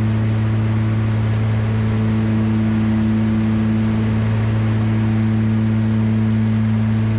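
Steady low drone of the Piper Aerostar 700's twin engines and propellers heard inside the cabin in cruise, a deep even hum with a thin high whine over it.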